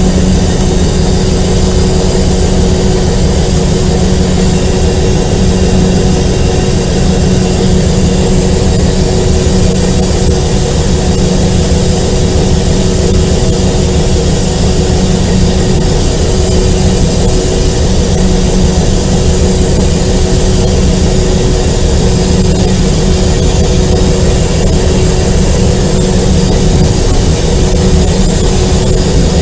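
Alco RS-8 diesel-electric locomotive's engine running steadily while the train is under way, a loud, even drone with a steady hum, heard close up from the cab doorway.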